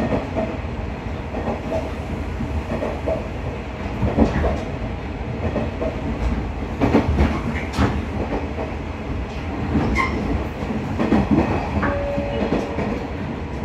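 KiHa 110 series diesel railcar running along the line, heard inside the passenger cabin: a steady low rumble of engine and wheels on rail, with a few sharp knocks scattered through it.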